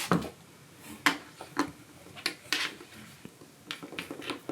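Kittens playing on a cat playhouse: about eight irregular light knocks and clicks, typical of paws and teeth on its panels.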